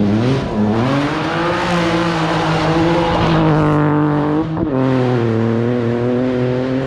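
Rally car engine accelerating hard, its pitch climbing over the first second or so and then holding high. About four and a half seconds in there is a short break at a gear change, then the engine pulls steadily again.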